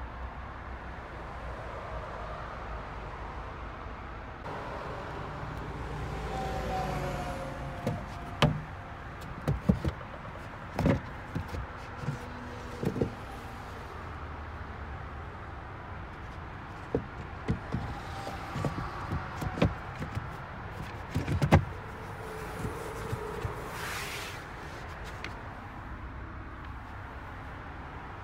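Plastic trim and latches in an Audi Q3's boot and rear seat area being handled: scattered clicks, knocks and thumps in two busy spells, the loudest a sharp knock a little past two-thirds of the way in, over a steady low hum.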